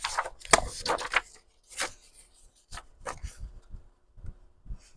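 Paper pages being handled on a tabletop: a burst of crackly rustling at first, then scattered light taps and knocks.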